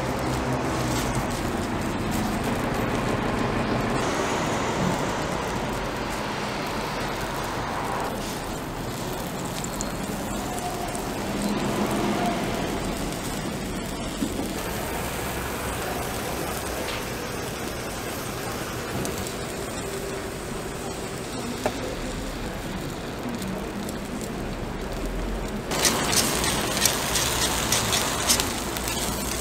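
Takoyaki batter with octopus and green onion sizzling steadily on a hot griddle, with street-market background noise. About 26 s in, the sizzle grows louder and crackly, with light sharp clicks.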